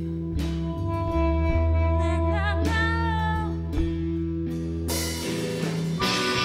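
A live band playing a slow instrumental passage, with bass and guitar chords held under a wavering harmonica line about two seconds in, and cymbals coming in near the end.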